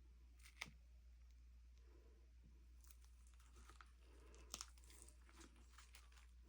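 Near silence with faint handling noises: a sharp click about half a second in, then a run of light clicks and rustling in the second half, the loudest a double click near the middle.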